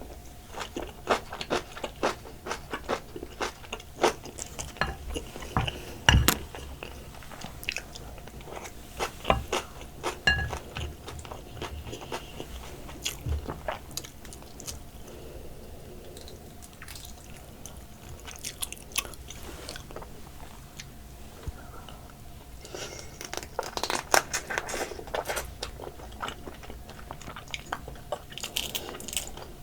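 Close-miked eating of soy-sauce-marinated raw crab: biting, crunching through the shell and chewing. The crunches come thick and fast for about the first half, thin out, then come in another quick cluster a little past two-thirds of the way in.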